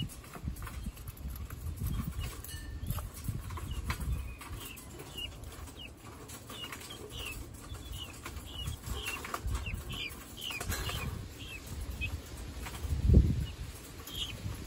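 Guinea fowl chirping while they feed, many short high peeps in an irregular string, with occasional sharp clicks. A low rumble swells near the end.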